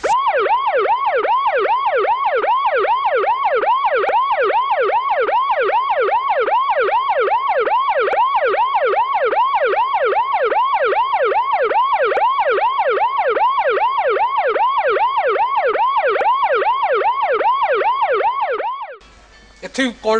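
Police siren in a fast yelp, its pitch sweeping up and down about two and a half times a second. It starts abruptly and cuts off suddenly near the end.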